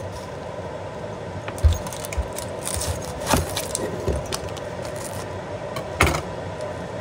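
Knife cutting a red onion and knocking on a thick wooden cutting board: a handful of sharp, irregular knocks spread a second or so apart.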